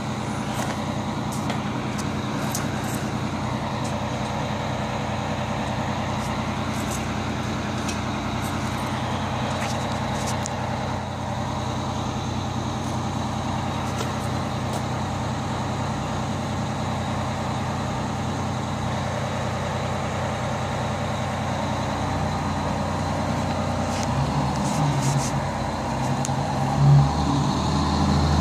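Fire engine's Detroit Diesel engine idling steadily, then getting louder over the last few seconds as the truck moves off, with one short loud burst near the end.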